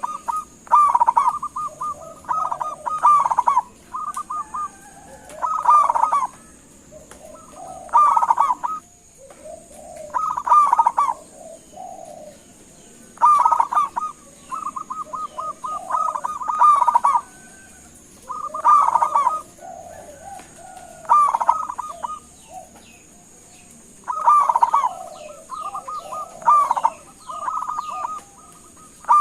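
Zebra dove (perkutut) calling: a short phrase of rapid cooing notes, repeated over and over every two to three seconds.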